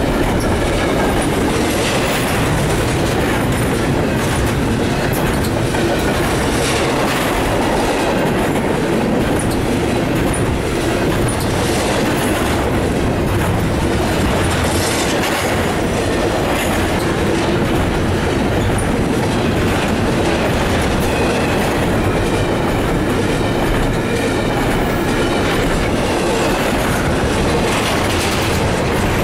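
Double-stack intermodal container well cars of a freight train rolling past close by, their steel wheels running steadily on the rails.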